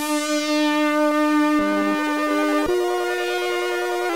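Background music of long held synthesizer notes, moving to a new chord about two and a half seconds in.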